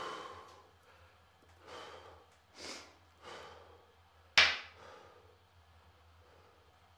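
A man breathing out heavily in short puffs while holding a seated stretch, with one sudden, sharp, louder sound about four and a half seconds in.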